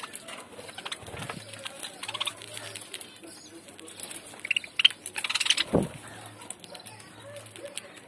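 Budgerigars chirping in short calls while pecking at fresh greens, with faint clicks and leaf rustling throughout; a single dull bump about six seconds in.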